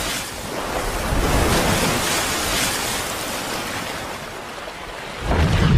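Rushing, splashing water sound effects with whooshes that swell and fade, ending in a sudden deep boom about five seconds in.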